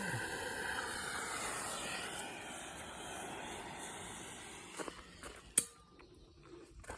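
Handheld gas torch flame hissing steadily while heating a rust-seized bicycle seat post to break it loose. The hiss fades out about four to five seconds in, followed by a few sharp clicks and knocks, the loudest about five and a half seconds in.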